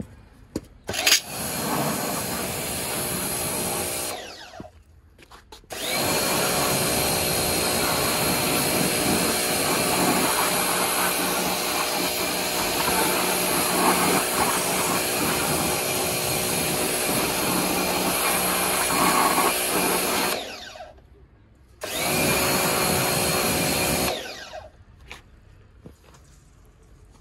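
Pressure washer running and spraying water onto an alloy wheel, rinsing off iron-removing wheel cleaner. It comes in three bursts that start and stop abruptly: a short one about a second in, a long one of about fifteen seconds, and a short one near the end, each a steady machine whine over the hiss of the spray.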